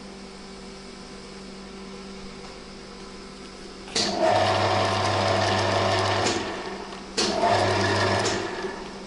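TV-4 training lathe during thread cutting: a quiet steady hum, then the machine starts up suddenly about four seconds in and runs with a loud whirring and a low hum for about two seconds. It dies down and starts again for about another second near the end.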